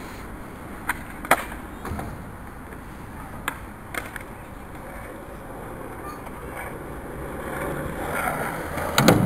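Skateboard wheels rolling over tarmac, with sharp clacks of a board striking the ground: two about a second in, two more around three and a half to four seconds, and a louder cluster near the end as the rolling grows louder.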